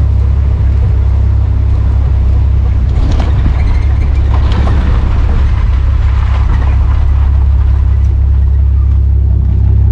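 Ford Ranchero driving along a paved road: a steady, loud, low rumble of wind and road noise, heard from a camera mounted outside over the hood.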